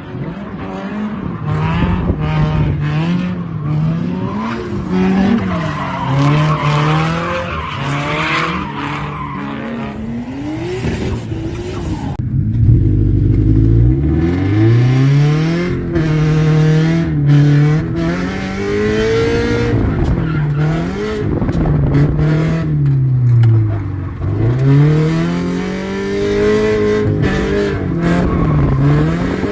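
Subaru BRZ's flat-four boxer engine revving up and down over and over, with tires squealing as the car drifts. Partway through, the sound gets louder and stays loud.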